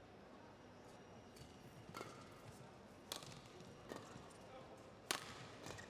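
Badminton rackets striking the shuttlecock in a doubles rally: four sharp hits about a second apart, the last the loudest.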